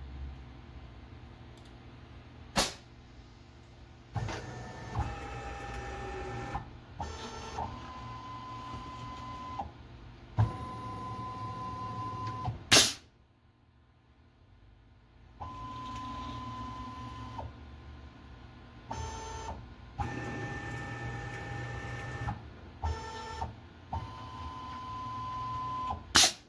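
Automatic tool change on a CNC-converted Grizzly G0704 mill. The axis motors whine at steady pitches in several separate moves, broken by three short, sharp bursts about ten seconds apart from the pneumatic tool release and air blast.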